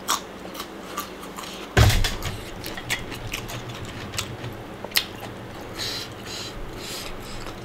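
Close-miked chewing of a raw baby carrot: scattered crunchy clicks, with one louder dull thump about two seconds in.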